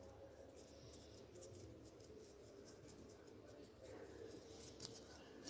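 Near silence, with faint scratchy rustles of fingers pinching and pressing a stuffed dough ball shut, and a small click near the end.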